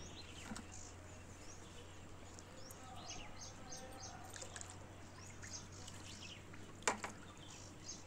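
Faint pouring and splashing of water as a bucket is tipped into a cement fish tank to release small fish. Birds chirp a few short repeated notes about three seconds in, and a single sharp knock comes near the end.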